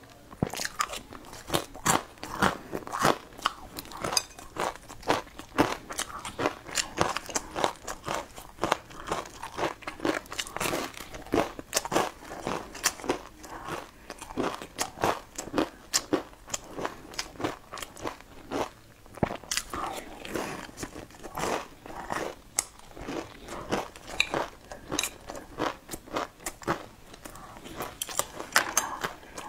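A person biting and chewing crispy, chili-spiced fried food close to the microphone: rapid, irregular crunches, several a second.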